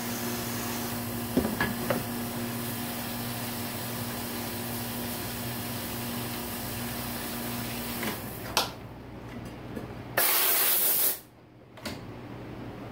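Parts washer spraying inside its cabinet: a steady hiss of spray over a low pump hum that cuts off about eight seconds in, while a disassembled valve body is washed of chips. About two seconds later comes a short, loud hiss lasting about a second that stops sharply, followed by a click.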